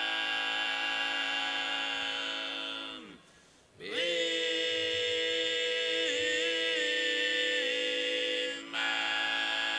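Sardinian cantu a tenore: a small group of male voices singing a cappella in close harmony, holding long droning chords without words. About three seconds in the chord slides down and breaks off, then the voices swell back up and hold again, with a brief breath break near the end.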